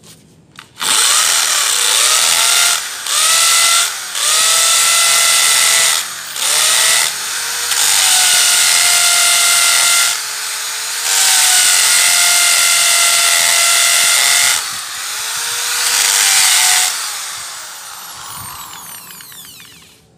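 Corded impact drill (NRT Pro 500HD) boring into a concrete pillar with its stock masonry bit. It runs in several long bursts with brief let-offs between them, and the motor holds a steady whine under load. Near the end it is released and spins down with a falling whine.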